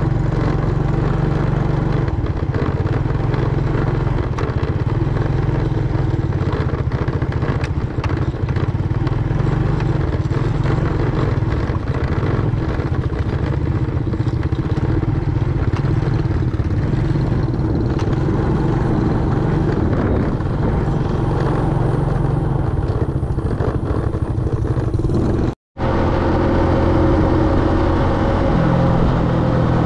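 Motorbike engine running steadily while riding, with road noise. The sound breaks off for a moment about four seconds before the end, then the ride carries on.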